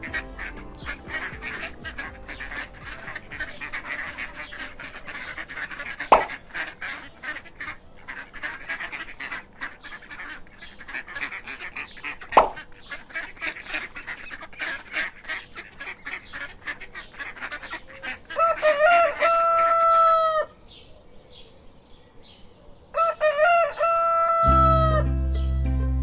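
A flock of chickens clucking and chattering, with two sharp clicks in the middle. A rooster then crows twice, about 18 and 23 seconds in, each crow rising and then held on one long note. Background music comes in near the end.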